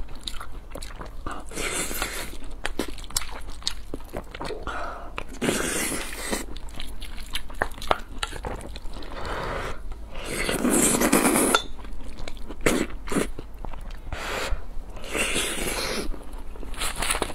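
Close-miked chewing of a soft rice bowl with braised eggplant and tomato-egg, with the clicks and scrapes of a wooden spoon against a brass bowl. A louder, longer noisy stretch of about a second and a half comes near the middle.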